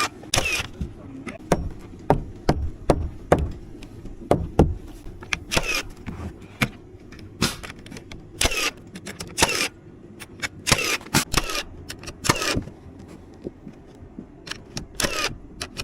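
Irregular sharp impacts of nailing during wood house framing, some single and some in quick runs, a few with a short metallic ring.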